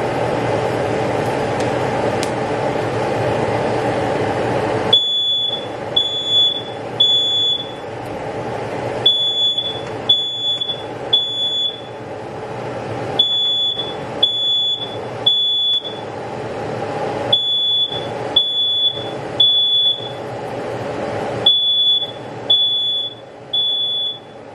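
Smoke alarm going off, sounding short high beeps in groups of three with a pause between each group, set off by smoke from peppers charring over open gas flames. A steady rushing noise cuts off about five seconds in, just before the beeping starts.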